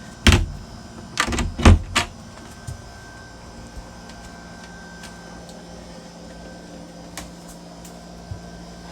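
A cabin door or locker lid in a sailboat's interior knocking and thumping about four times in the first two seconds, over the steady hum of a running dehumidifier.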